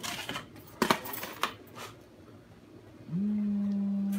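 Kitchenware handling: a few short clinks and scrapes of a plate and spatula around a skillet. About three seconds in, a steady low hum starts, slides up briefly at its onset and holds one pitch for over a second.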